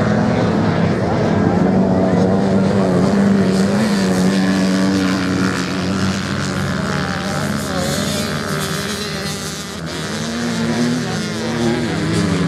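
Several dirt-bike engines racing on a beach sand track, revving up and down with overlapping notes as the bikes go through the corner. The engine sound dips briefly about ten seconds in, then rises again.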